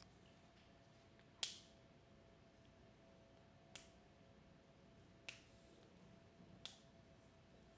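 Four sharp, short clicks spaced a second or two apart, the first the loudest, over quiet room tone with a faint steady hum.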